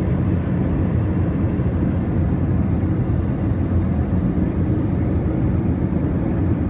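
Airbus A320 cabin noise in flight on approach: the underwing jet engine and the airflow over the fuselage heard from inside at a window seat, a steady low rumble that does not change.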